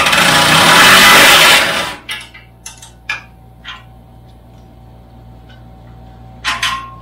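Cordless power tool on a socket extension buzzing as it spins out a bolt holding the stock exhaust on a Can-Am Maverick X3, for about two seconds, then stopping. A few light metallic clicks and knocks follow as the tool and bolt are handled.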